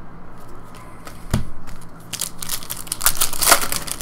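A thump about a second in, then the crinkling and tearing of a trading-card pack wrapper being ripped open by hand, loudest near the end.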